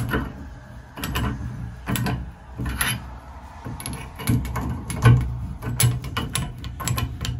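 A wrench tightening the brass packing nuts on a two-handle Sayco shower valve's stems, making a series of irregular metal clicks and scrapes.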